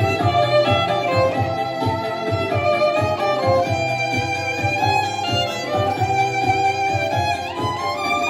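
Instrumental music: a violin playing a melody over a steady beat and bass.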